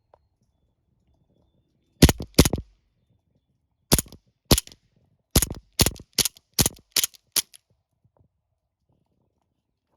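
Sig Sauer 1911 CO2 blowback BB pistol firing about ten shots: two in quick succession about two seconds in, two more about two seconds later, then six in a fast string at roughly two to three a second.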